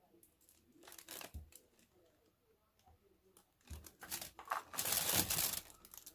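Gift packaging being torn and crinkled open by hand: a short rip about a second in, then a longer, louder stretch of tearing and crumpling from about halfway through.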